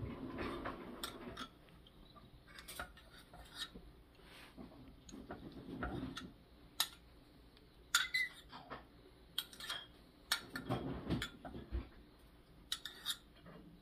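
A metal spoon clinking and scraping against a glass measuring cup and a small stainless steel cup as egg whites are poured out to be weighed: scattered light clinks and a few duller knocks, coming more often in the second half.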